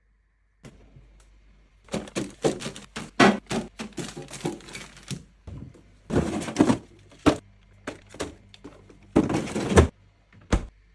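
Containers and food items being handled and set into a refrigerator: a quick run of plastic clicks and knocks, two longer sliding sounds, and a single thump near the end.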